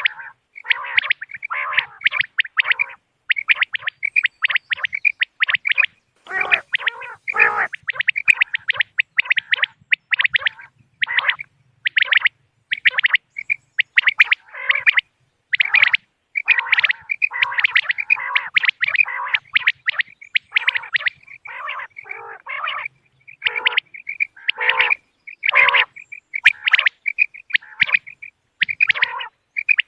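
Quail calling over and over in quick clusters of short, sharp notes, several calls following on or overlapping one another with hardly a pause.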